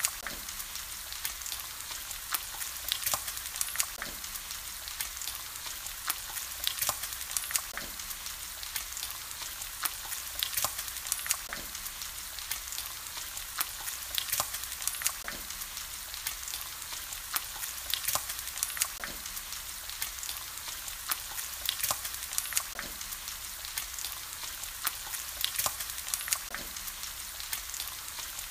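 Bacon strips frying in their rendered fat on a flat griddle: a steady sizzle with frequent sharp crackling pops.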